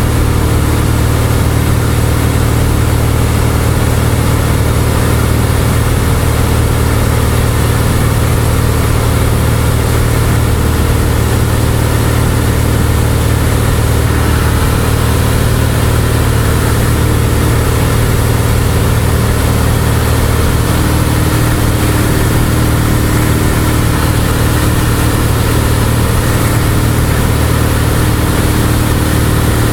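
Cessna 172's piston engine and propeller droning steadily in level cruise, heard from inside the cabin.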